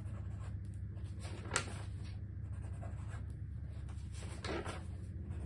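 Pen writing on paper, a run of faint scratching strokes with a sharper tick about one and a half seconds in, over a steady low hum.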